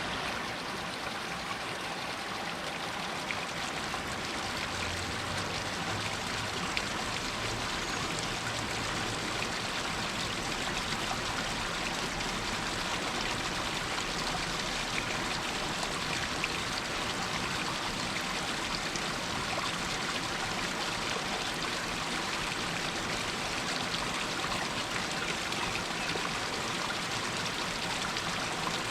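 Water running and splashing down a rocky hillside in a steady rush, with small trickles over the stones.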